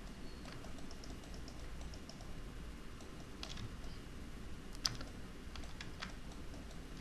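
Faint, scattered computer keyboard clicks, a few keystrokes spread out with a small cluster in the second half and one slightly louder click about five seconds in, over a faint low hum.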